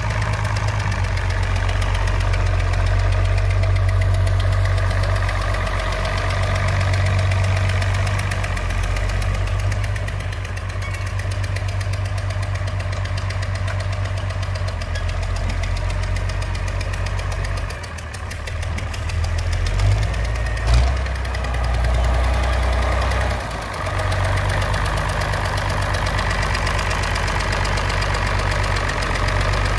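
International Harvester 560 six-cylinder diesel tractor engine running as the tractor is driven slowly. The engine note swells and dips a little, and there is a single sharp knock about two-thirds of the way through.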